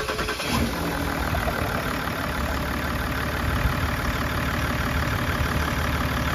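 Repaired Range Rover engine idling steadily just after starting, with an even firing rhythm and running well.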